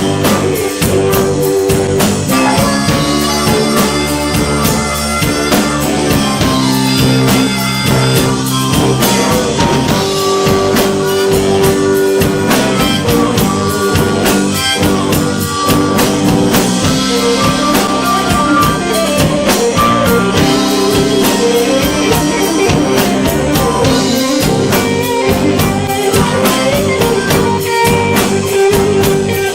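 Rock band playing a blues number live, with guitar and drum kit carrying the music.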